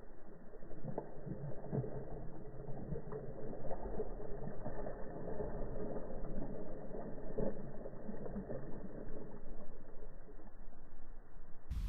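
Hooked bluefish thrashing and splashing at the water's surface, a jumble of irregular splashes. It sounds muffled, with no high end, until it suddenly clears just before the end.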